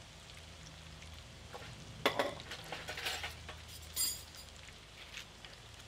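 Steak fries sizzling steadily in oil in a FIREDISC plow-disc cooker, with a couple of sharp clinks of dishes about two and four seconds in.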